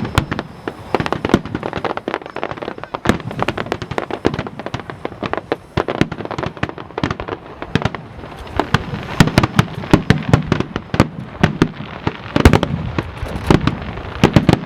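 Aerial fireworks going off: a rapid, irregular barrage of sharp bangs over continuous crackling, growing denser and louder about two thirds of the way through.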